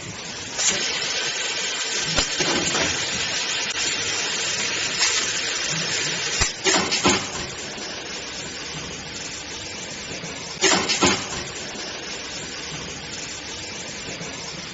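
Extrusion blow molding machine running through its cycle: a loud hiss of air for several seconds, then a couple of sharp clunks as the molds and carriage move. A second pair of clunks comes a few seconds later over a quieter hiss.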